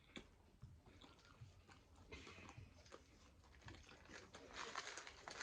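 Faint chewing of food, with scattered soft clicks from the mouth.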